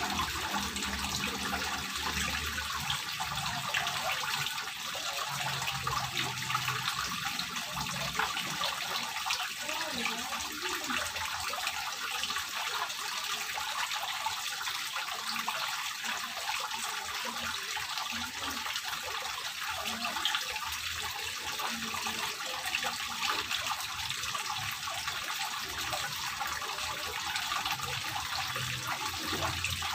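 Water wall fountain on a small pond: water running down a grooved stone panel and splashing steadily over the ledge into the pool.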